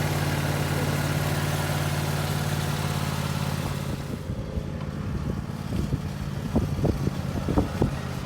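Lawn mower engine running steadily. About four seconds in its sound drops away, and irregular knocks and bumps follow.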